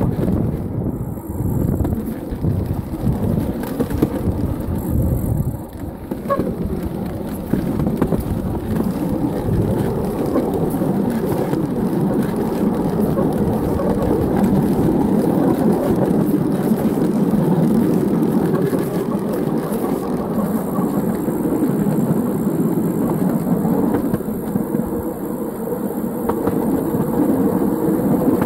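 Wheels of a pedal-powered 7¼-inch gauge rail velocipede running along the track at speed, a steady rumble. Wind buffets the microphone for the first six seconds or so.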